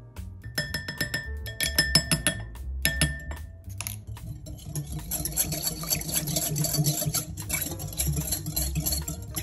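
A run of sharp clinks on a glass mixing bowl, the glass ringing after each. Then, from about halfway through, fast steady whisking: a metal wire whisk beating milk and oil, its wires rattling and scraping against the glass.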